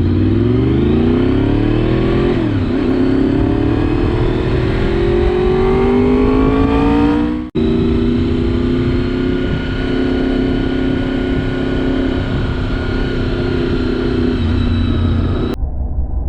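Honda VFR 750's V4 engine accelerating through the gears: the pitch rises, drops with a gear change about two seconds in, and rises again. After a brief dropout about halfway, it runs at a steady cruising pitch.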